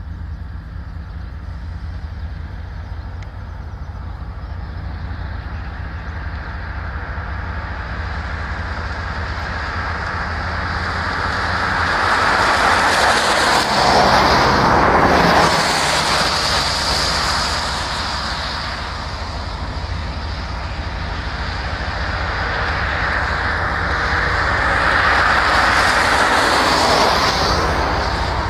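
Union Pacific diesel-electric locomotives, several coupled together, approaching slowly at the head of an empty ballast train. Their engines make a steady low drone that grows louder as they come closer. There are two louder swells of broad noise, one about halfway through and one near the end.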